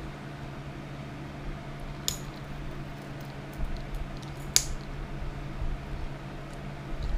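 Two light metallic clinks, about two and a half seconds apart, over a steady low hum.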